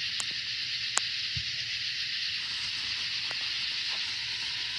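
Fuse of a Black Cat firework artillery shell being lit and burning, over a steady high hiss, with two sharp clicks near the start, the louder one about a second in.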